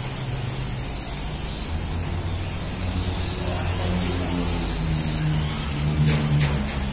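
Several 1/12-scale electric RC cars lapping a track, their motors whining and repeatedly rising and falling in pitch as they accelerate and slow for corners. A low steady hum runs underneath.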